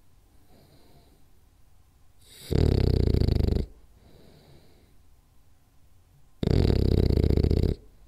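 French bulldog snoring in its sleep: two loud snores, each about a second long and about four seconds apart, with quiet gaps between.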